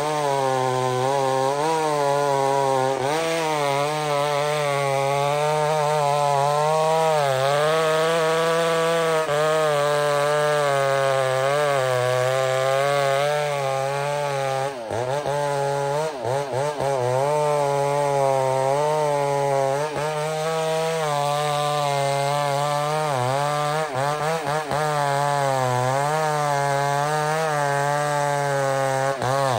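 McCulloch 125 Super Pro chainsaw, a big-displacement two-stroke, running at full throttle while cutting through a large log, its engine note wavering as the chain loads in the wood. The pitch drops sharply and recovers a few times about halfway through.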